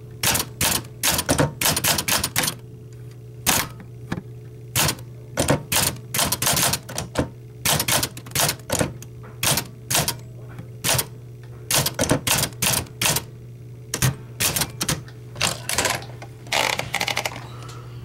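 Olympia SM9 portable manual typewriter being typed on: its typebars strike the platen in an uneven string of sharp clacks, a few a second with short pauses between them. Near the end comes a longer rasping sound.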